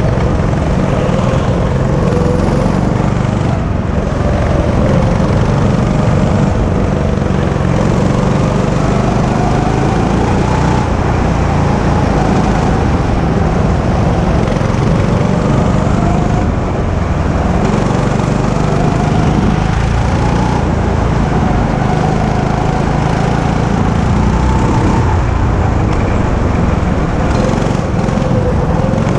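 Go-kart engine running hard, heard from the driver's seat. Its pitch rises and falls every few seconds as the kart speeds up on the straights and slows for the corners.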